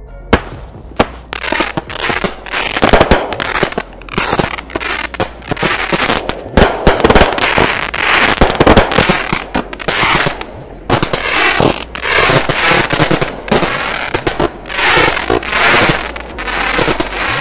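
Supernatural 64-shot consumer aerial finale set firing, its four 16-shot 1-inch-tube aerials going off one after another. It gives a rapid string of loud bangs and crackling breaks, with a short lull about eleven seconds in.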